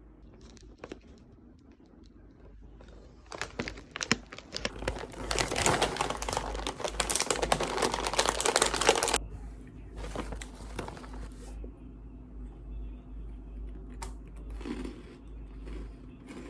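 Packaging being crumpled and torn by hand, a dense crinkling that runs for several seconds, then quieter, intermittent rustling and handling.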